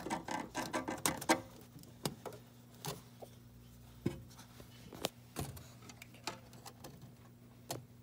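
Small clicks and taps of fingers handling the plastic pluggable relay terminal block and wire on a fire alarm panel's circuit board. The clicks come in a quick cluster in the first second and a half, then singly, about one every second, over a faint steady low hum.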